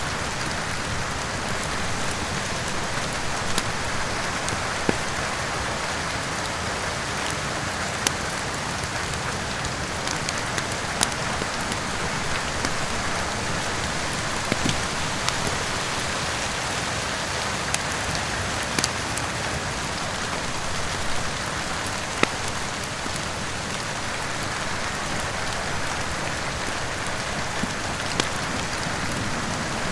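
Steady rain falling, with sharp crackles and pops from a wood fire every second or two.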